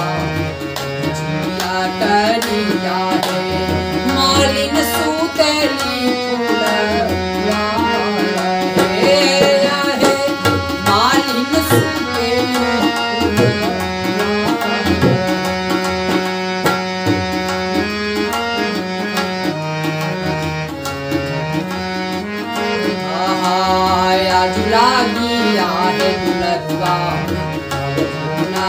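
Tabla and harmonium playing together: the tabla keeps a steady rhythm of strokes under the harmonium's reedy melody.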